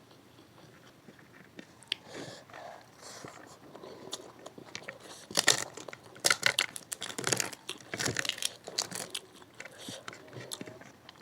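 Close-miked eating: small mouth and chewing sounds at first, then a run of loud, sharp crunching bites and chewing from about five seconds in, tapering off near the end.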